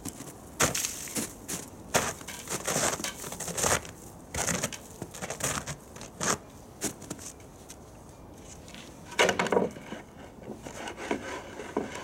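Irregular knocks, scrapes and rustling from a small table being set up and handled, with a louder clatter about nine seconds in.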